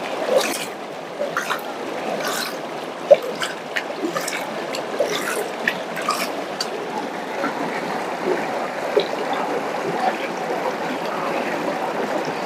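Water sloshing and splashing in a gold pan swirled by hand, with sharp little clicks through the first half or so. This is the washing stage, where light stones and silt are spilled out over the rim and the heavy particles settle to the bottom.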